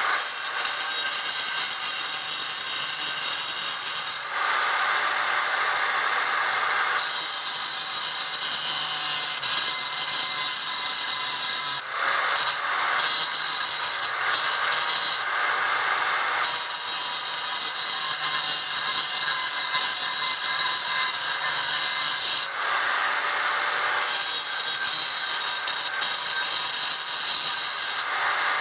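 Angle grinder running continuously as it grinds an ammonite fossil in calcite and limestone, a high whine over harsh grinding noise. The texture changes every few seconds as the disc is pressed against the stone and eased off.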